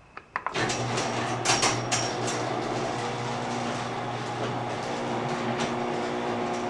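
LiftMaster 3265 chain-drive garage door opener starting with a click and then running steadily, its motor humming as it drives the door, with a few clicks and knocks about one and a half to two and a half seconds in.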